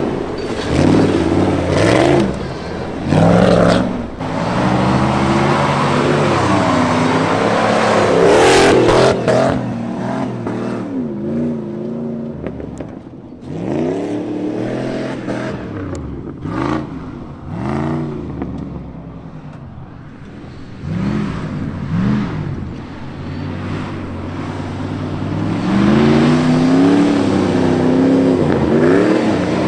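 Jeep Grand Cherokee ZJ's 5.2-litre V8 revving hard again and again under off-road driving, its pitch climbing and dropping with each throttle change. It eases off for a while around the middle, then revs hard again near the end.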